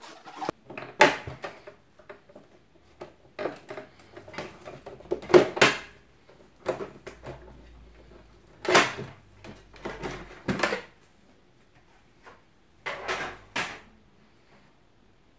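Plastic clicks, knocks and short scrapes from the housing and side cover of an HP Color LaserJet printer being handled and pried open, a dozen or so irregular bumps with the loudest about halfway through.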